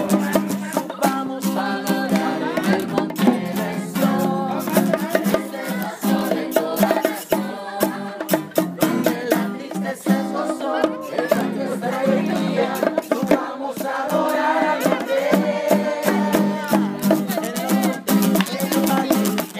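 Latin-style music with a steady rattling shaker rhythm over plucked strings.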